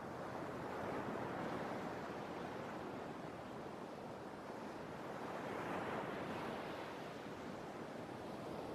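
Sea waves surging and washing on the shore, a steady rush that swells twice, about a second in and again around six seconds.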